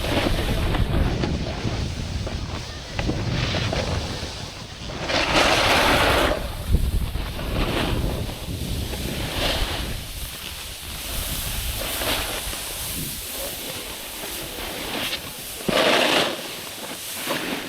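Wind rushing over the microphone, rising in several louder hissing swells, the strongest about five seconds in and again near the end.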